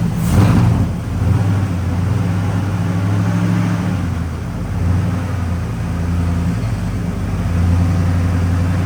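2001 Chevrolet Silverado truck engine running unevenly just after catching on fluid poured into the intake. Its hum wavers in pitch and level throughout, which the owners take as a sign the fuel pump may be at fault.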